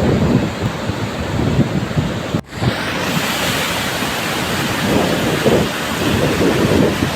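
Loud, steady roar of rushing flash-flood water, with low rumbling swells and wind buffeting the microphone; the sound briefly drops out about two and a half seconds in.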